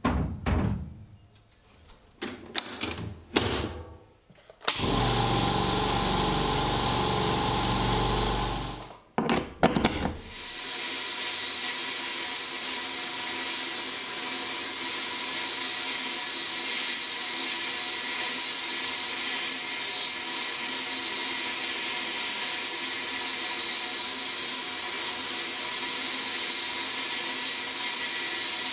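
A few knocks and clatters as a steel bayonet is handled inside a sandblasting cabinet, then a steady machine run for about four seconds. From about ten seconds in comes the steady hiss of the cabinet's abrasive blast gun stripping rust from the bayonet.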